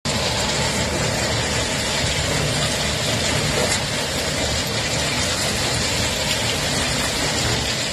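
Ballast train moving slowly while crushed-stone ballast drops onto the track and a plough fixture attached to the brake van drags through it, shaping the ballast profile. A steady mechanical rumble mixed with the rush of falling stones, at an even level.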